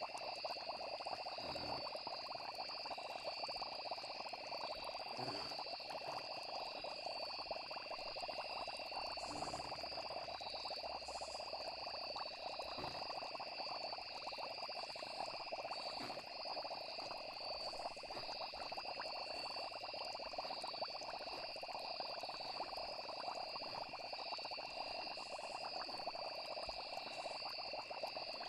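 Steady night chorus of frogs and insects, trilling without a break, with a few faint soft pops now and then.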